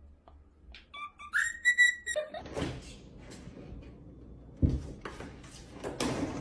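Cockatiel whistling a short phrase that steps up in pitch, about a second long, then a single thump about four and a half seconds in.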